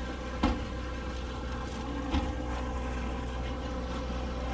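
Steady low hum of a docked sportfishing boat's engine idling, with two sharp knocks, one about half a second in and the other about two seconds in.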